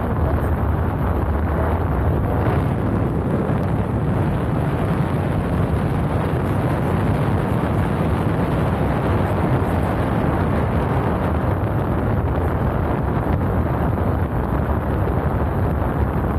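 Paramotor engine and propeller running steadily in flight, with wind rushing over the microphone.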